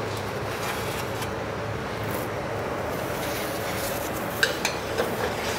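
Metal sheet pan being slid onto a commercial oven's wire rack, with a few sharp metallic clinks about four and a half seconds in, over a steady background noise.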